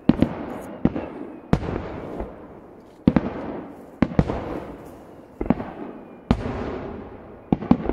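Aerial firework shells bursting in quick succession: about fifteen sharp bangs, some in close pairs, each trailing off in a rolling rumble.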